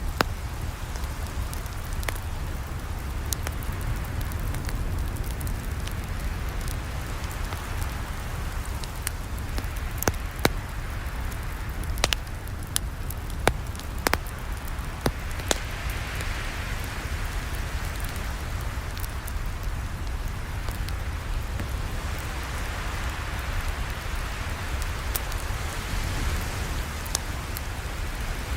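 Campfire burning: a steady hiss of flames over a low rumble, broken by sharp pops and crackles of burning wood, most of them bunched together around the middle.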